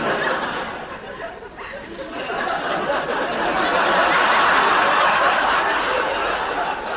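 Studio audience laughing, swelling to a peak about halfway through and easing off near the end.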